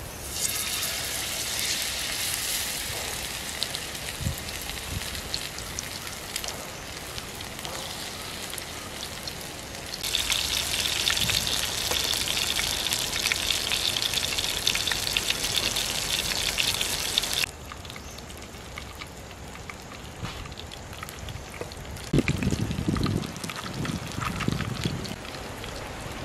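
A whole masala-coated fish sizzling and crackling in hot oil in a clay pan. The sizzle starts as the fish goes in, is loudest in a long stretch in the middle, then settles quieter, with a few duller knocks near the end.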